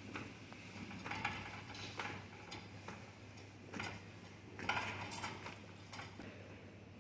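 Faint, irregular clicks and wet scrapes of a drain-cleaning line being worked by hand in a toilet floor outlet clogged with grease.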